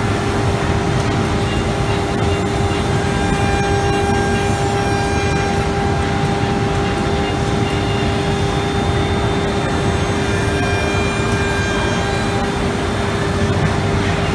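ATC CNC router spindle running steadily while it routes a groove pattern into a wood door panel: a constant whine over a dense mechanical hum.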